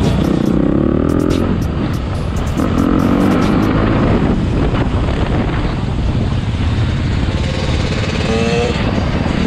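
Dirt bike engines revving, their pitch rising and falling in several pulls while riding in a group, over steady wind noise on the microphone.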